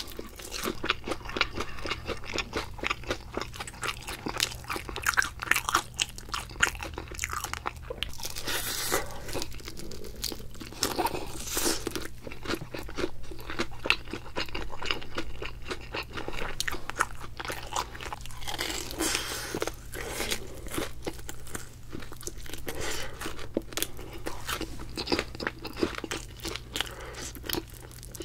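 Close-miked crunching and chewing of BHC Potato King fried chicken, its thick crisp batter crackling densely as it is bitten and chewed, with louder bites now and then.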